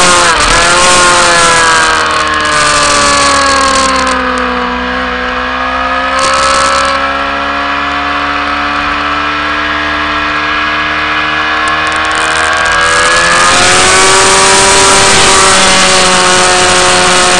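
Racing motorcycle engine heard from an onboard camera, with wind rushing over the microphone. The engine note falls as the bike slows into a long corner, holds low and steady through it, then climbs again as the bike accelerates out about three-quarters of the way through, with the wind noise growing louder.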